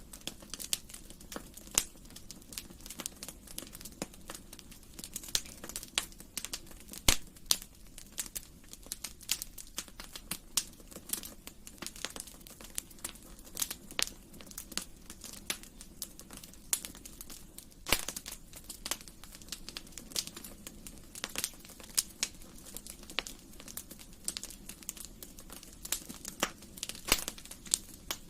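Wood fire crackling in a fireplace: irregular sharp pops and snaps, some much louder than others, over a soft steady rumble of the flames.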